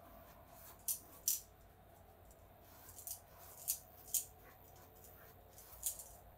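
Paintbrush strokes on the edge of a fabric lampshade: about six short, scratchy brushing sounds spread through, over a faint steady hum.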